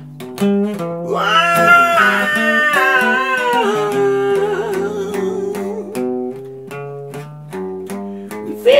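Acoustic guitar being played, with a man singing one long held note that climbs and then slowly falls with a waver over the first few seconds. After that the guitar carries on more quietly.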